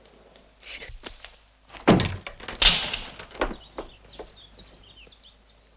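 A door being opened and shut, with a few knocks and then a couple of heavy thuds about two seconds in, followed by a sharper bang. Faint bird chirps come after.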